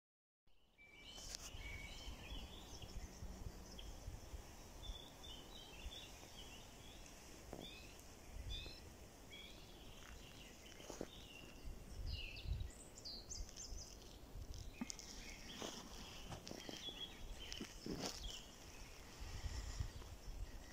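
Small songbirds chirping and twittering in woodland, many short calls overlapping, starting about half a second in. A low rumbling on the microphone and a few sharp clicks run beneath them.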